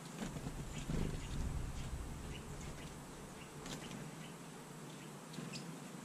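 Low, uneven wind rumble buffeting the microphone, strongest in the first couple of seconds, with a few faint, short, high ticks scattered through.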